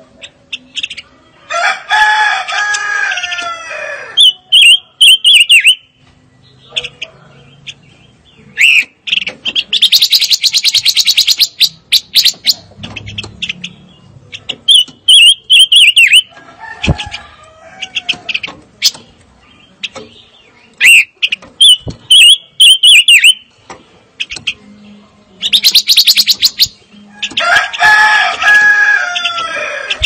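Silver-eared mesia song in repeated phrases: fast buzzy trills, runs of short high chirps, and a longer, fuller call with a falling tone that comes about two seconds in and again near the end.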